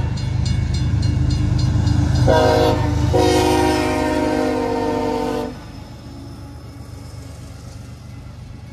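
A CSX freight locomotive's air horn sounds a short blast a little over two seconds in, then a long blast that cuts off about two-thirds of the way through, the end of a grade-crossing signal. A quick run of ticks comes in the first two seconds, and the diesel engine's low rumble goes on under the horn and after it.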